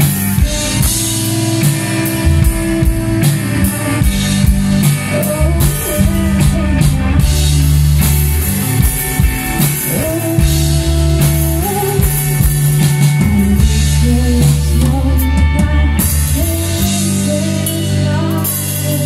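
Live band performing a song: a woman singing into a handheld microphone over guitar and a drum kit, amplified through the stage sound system.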